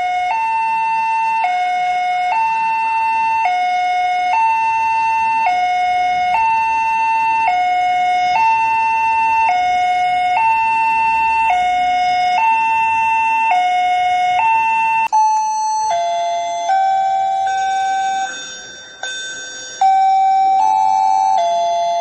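Indonesian railway level-crossing electronic warning alarm sounding a repeating two-tone pattern, a long high tone dropping to a short lower one about every two seconds. About two-thirds of the way through it switches to a slower sequence of different stepped tones, the crossing's chime leading into its recorded announcement.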